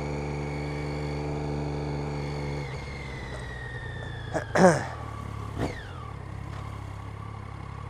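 A Triumph Street Triple R's three-cylinder engine, heard from the rider's seat, runs steadily under throttle. About a third of the way in the note drops as the throttle closes and the bike slows, and a whine falls in pitch. About halfway through there is a short loud burst of revs whose pitch falls away, then a briefer one.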